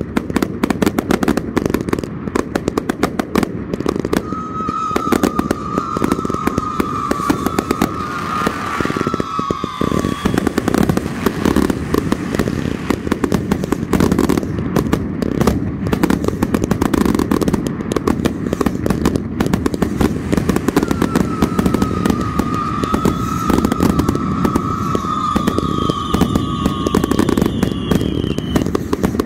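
Firework cakes firing in a dense, continuous barrage of rapid pops and crackles. A long whistle sounds over the barrage about four seconds in, and another near the end.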